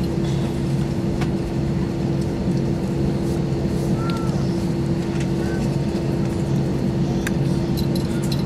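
Cabin noise inside an Airbus A321 on the ground: the engines running at idle, a steady hum with a constant mid tone over a low rumble, with a few faint clicks.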